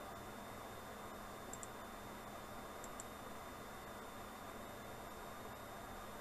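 Steady recording hiss with a faint hum, and a computer mouse button clicked twice, about a second and a half in and about three seconds in, each as a quick press-and-release pair.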